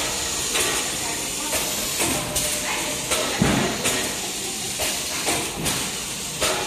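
Servo flow-wrap packing machine and its conveyor line running: a steady hiss with irregular clacks about every half second to a second.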